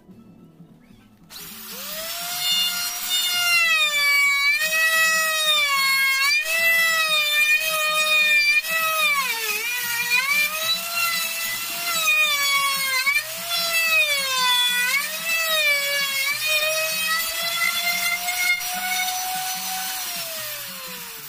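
Electric wood router starting up just over a second in and running at high speed while it cuts a tenon, its whine dipping in pitch each time the bit bites into the wood under load and recovering between cuts. Near the end it is switched off and winds down with a falling whine.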